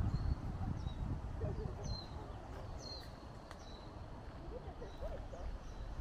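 Japanese white-eyes (mejiro) giving short, thin, high chirping calls several times, over a steady low rumble of background noise.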